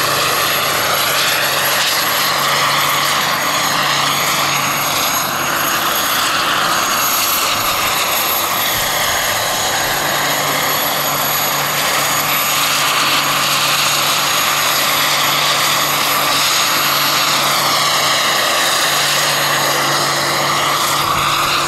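Jakadofsky Pro X kerosene turbine and 4.5 m main rotor of a 1:2.6-scale SA-315B Lama model helicopter in a low hover: a steady high turbine whine over the rush of the rotor blades. The tone shifts slowly as the helicopter moves.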